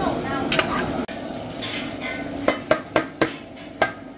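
Cooking sounds: a utensil stirring in a pot over a steady sizzling hiss, with several sharp metal clacks against the pot in the second half. The level drops abruptly about a second in.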